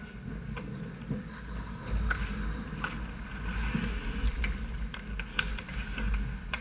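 Ice hockey play close to the net: skates scraping on the ice and several sharp clacks of sticks and puck, over a steady low rumble.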